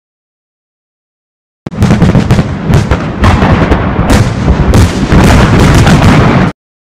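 Fireworks salute at close range: after a gap of dead silence, a dense barrage of very loud bangs and crackles starts nearly two seconds in, runs for about five seconds and cuts off abruptly.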